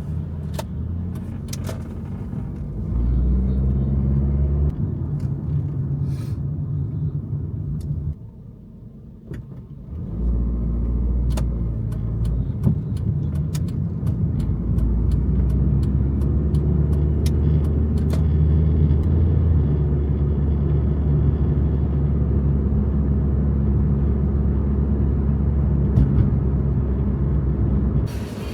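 Car running, heard from inside the cabin: a steady low engine and road rumble that drops away briefly about eight seconds in, then builds again, with a few scattered clicks.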